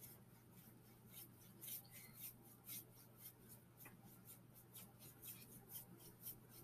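Faint scratchy strokes of paintbrushes dry-brushing metallic paint across canvas boards, light irregular swishes a few a second, over a low steady hum.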